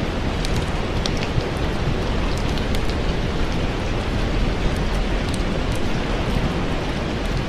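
Steady heavy rain falling, a dense even hiss with scattered small sharp ticks throughout.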